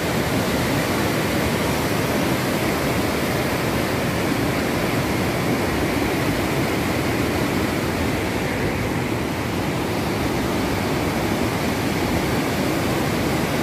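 Rushing water of a wide mountain river in spate, swollen by heavy monsoon rain: a steady, even roar with no break.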